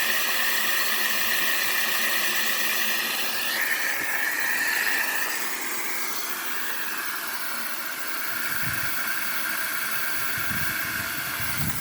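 Water and air hissing out of an open valve on a new well's pressure system, with a whistling tone that jumps in pitch about three and a half seconds in and then fades. The pressure is being let down so that the deep well pump will cut in.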